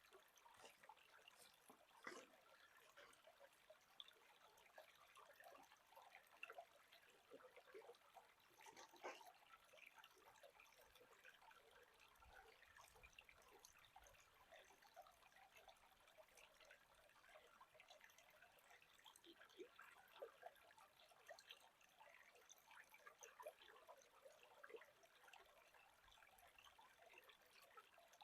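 Faint trickling of a small stream, an even patter of tiny splashes.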